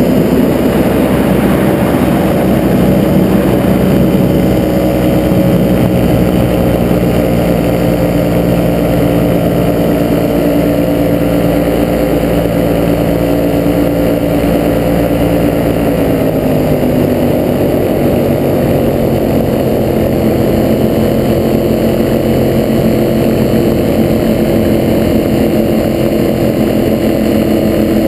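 Ultralight aircraft's engine and propeller running with a steady drone. The pitch eases down slowly and drops a step about halfway through as the throttle comes back for the descent and landing on snow.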